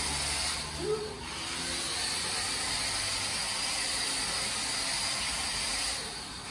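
WPL D12 RC truck's small brushed electric motor and gearbox whirring steadily as the truck drives slowly across the floor, fading about six seconds in.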